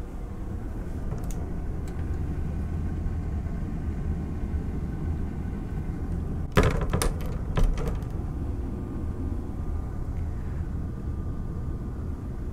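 Steady low hum of the boat's interior machinery and ventilation, with a short cluster of knocks and clicks about six and a half seconds in, as a cabin door is handled.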